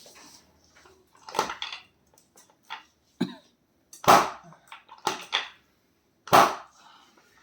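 Several short, sharp noises from a chiropractic adjustment session, coming about a second apart. The loudest are about four and six seconds in.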